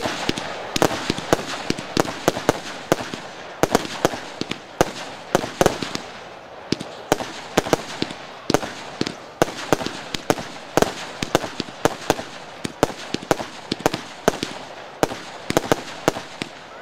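Consumer fireworks cake from the Z39 collection firing shot after shot: shells launching and bursting, with several sharp bangs a second in an irregular rhythm over a fading hiss.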